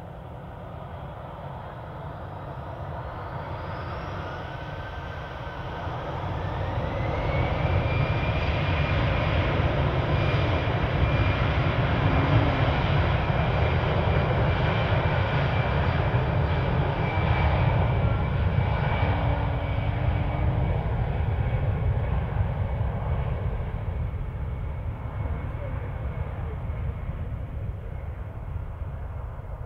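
Airbus A319 jet engines spooling up for takeoff, a whine rising in pitch as the engine noise builds over several seconds. The noise holds at full takeoff power through the middle and then fades as the airliner rolls away down the runway.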